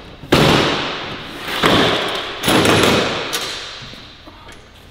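Folding table being unfolded and set up: three loud thuds and clanks about a second apart as the metal legs swing out and the top knocks about, each one echoing and dying away in a large hall.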